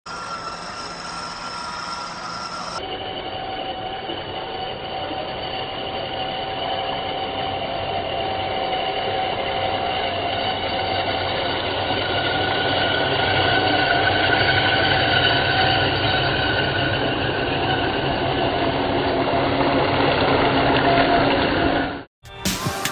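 Electric motors and gearboxes of scale RC crawlers whining steadily as they drive through shallow water, the whine growing slowly louder over a rushing noise. The sound cuts off suddenly near the end.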